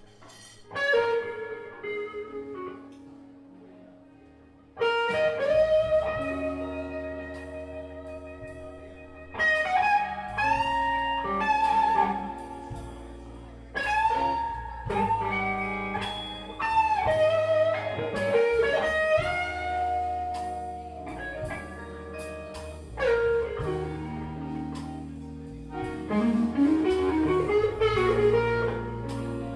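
Electric blues band playing an instrumental passage: lead electric guitar with sustained, bending notes over bass. The sound nearly drops away for a few seconds, and the band comes back in about five seconds in.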